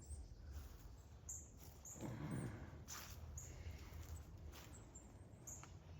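Faint backyard ambience with scattered small clicks and short high chirps, and a soft low murmur about two seconds in.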